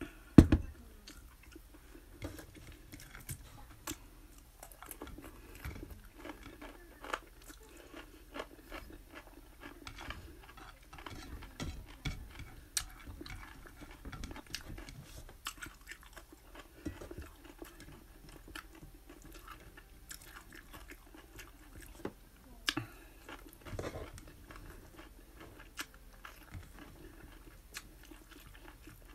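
Chewing and crunching of bacon and chicken wing, with many small clicks from biting and eating throughout. A single sharp thump just after the start is the loudest sound.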